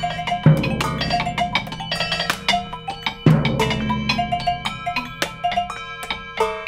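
Contemporary percussion duo playing mallets and sticks on a vibraphone, metal bowl and small objects in quick strikes with ringing tones. Two deep drum strikes with a long low ring come about half a second and about three seconds in.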